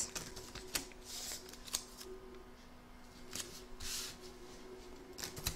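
Masking tape being pulled off the roll, torn and pressed onto organza fabric, with hands smoothing the fabric. It comes as short rustling hisses, about a second in and again near four seconds, and a few soft clicks, all faint.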